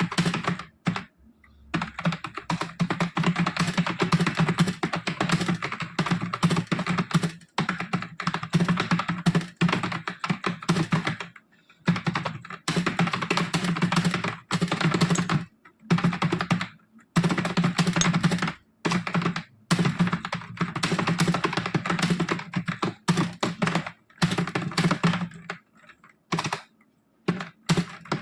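Fast touch-typing on a computer keyboard: rapid, continuous key clicks in long runs broken by brief pauses.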